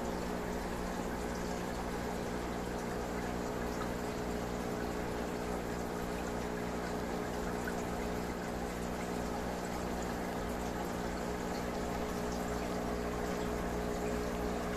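Aquarium water bubbling and trickling steadily from the tank's aeration or filter, over a constant low hum from the running pump.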